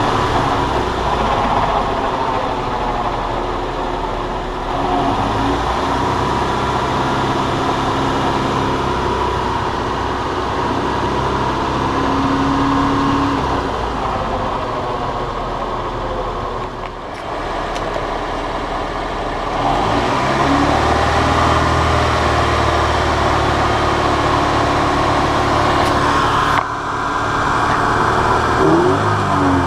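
Car engine running as the car is driven, its revs rising and falling, with road noise. The sound changes abruptly near the end.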